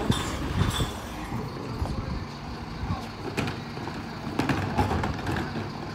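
Mercedes-Benz Econic bin lorry's diesel engine running with a steady low hum, with a few sharp knocks from bins being handled at the rear.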